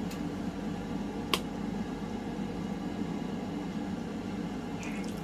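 Air fryer running with a steady fan hum, with a single sharp click about a second in.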